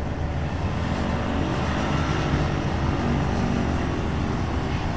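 The Rotax 582 two-stroke engine and propeller of a Carlson Sparrow II ultralight running steadily at low power as the plane taxis on grass.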